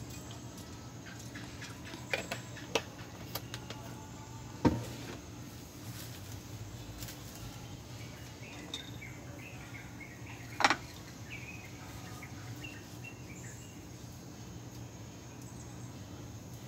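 Quiet background while cooking oil heats in a wok: a steady low hum with a few sharp clicks and knocks, the loudest about a third and two-thirds of the way through, and faint chirps in the middle.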